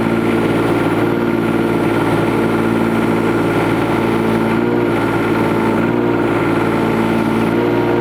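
Kubota U10-5 mini excavator's diesel engine running steadily under hydraulic load as the machine works itself backward over a trench. The engine note shifts a little about halfway through and again near the end.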